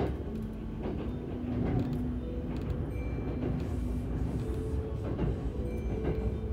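Kintetsu Urban Liner limited express train running, heard from inside the passenger car: a steady low rumble with a faint steady hum and a few sharp clicks.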